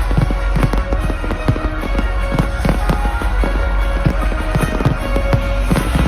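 Fireworks display: a rapid series of firework bangs and crackles, several a second, over loud music played for the show.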